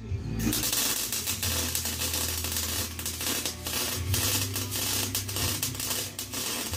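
Electric arc welding: the arc crackles and spits steadily. It strikes about half a second in and stops just before the end.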